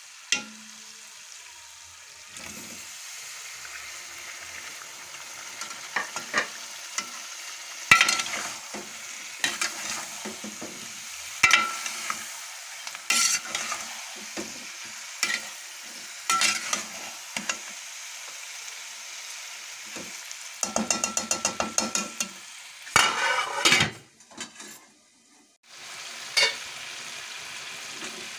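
Chicken frying in a pot with a steady sizzle, while a spatula scrapes and knocks against the pot's metal sides many times during stirring. There is a quick run of clicks about two-thirds of the way through, and the sizzle drops away briefly soon after.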